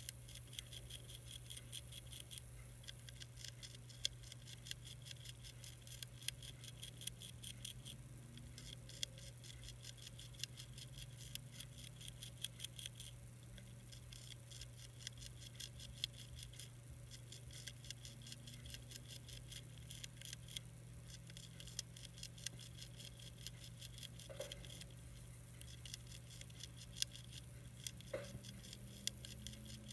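Monarch caterpillar chewing a milkweed leaf: fast, faint crunching clicks of its jaws biting the leaf edge, in bouts broken by short pauses every few seconds.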